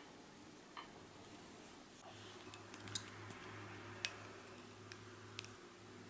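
Faint, sticky handling of soft dried dates torn apart by hand over a ceramic plate, with a few sharp little clicks as pieces and a tahini jar are handled over the plate. A low steady hum comes in about two seconds in and stops shortly before the end.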